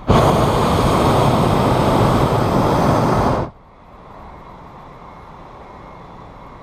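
Hot air balloon's propane burner firing in a single blast of about three and a half seconds, starting and cutting off abruptly.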